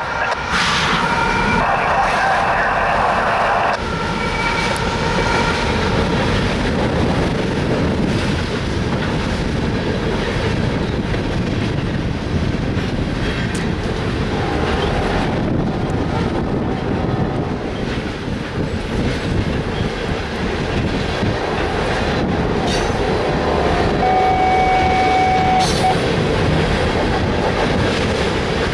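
Norfolk Southern freight train passing: the locomotive's horn sounds for about four seconds at the start and cuts off, then a steady rumble and clatter of covered hopper cars rolling over a steel girder bridge. A brief high squeal is heard near the end.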